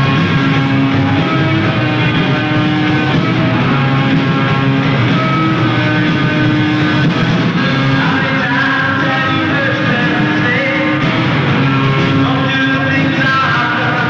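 Live rock band playing a song with electric guitars and a drum kit, loud and steady throughout.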